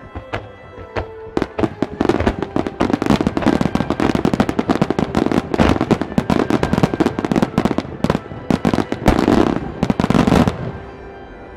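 Fireworks barrage: a few separate bangs, then from about two seconds in a dense, rapid run of shell bursts and crackling that cuts off near the end. Music plays underneath.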